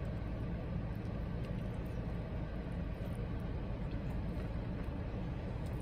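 Steady low rumble of a car idling, heard from inside the cabin, with a few faint clicks of chewing over it.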